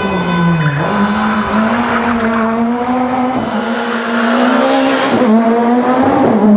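Rally car engine running hard at high revs, a steady high note that drops sharply about three-quarters of a second in and dips briefly a few more times before climbing back.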